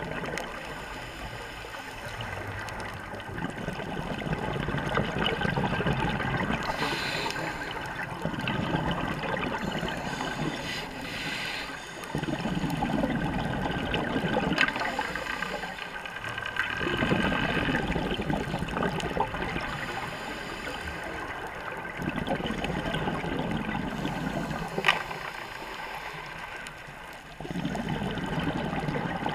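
Scuba divers' breathing underwater, heard through an underwater camera housing: exhaled bubbles gurgle out in swells every few seconds between quieter inhalations. A single sharp click comes near the end.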